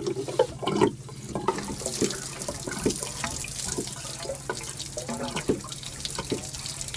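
Marine toilet pumping fresh water through its bowl: water rushing and gurgling, with scattered clicks and a steady low hum underneath.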